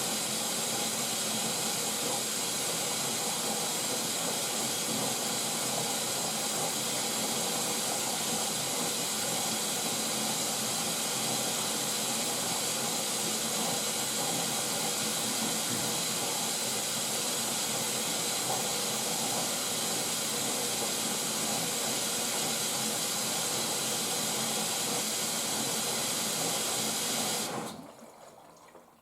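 Asko washing machine filling for its final rinse: mains water rushing through the detergent drawer, flushing the pre-wash and conditioner compartments. A steady hiss that cuts off suddenly near the end.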